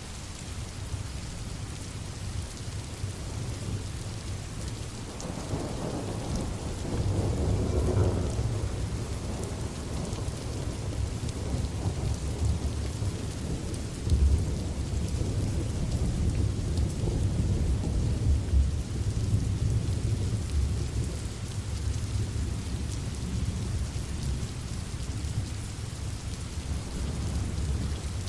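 Steady rain with thunder: a deep rumble builds about five seconds in, peaks a few seconds later and keeps rolling, with a sharper low crack about halfway through.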